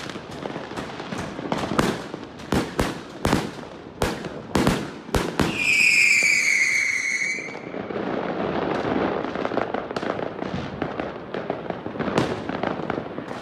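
Fireworks going off: a rapid run of sharp bangs, then a whistling effect lasting about two seconds with a slightly falling pitch. After that comes a long stretch of crackling with a few more bangs near the end.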